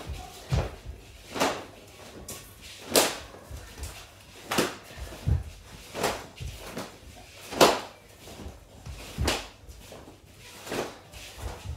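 Gymnastics ribbon on a stick swishing through the air with each forehand swing, a short sharp swish about every second and a half, with a few low thumps between them.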